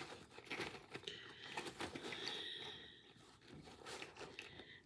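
Faint rustling and small clicks of hands sorting through doll packaging and small plastic accessories, with soft breathing.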